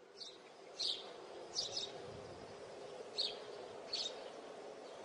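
Birds chirping: short high calls about once a second over a faint, steady background noise.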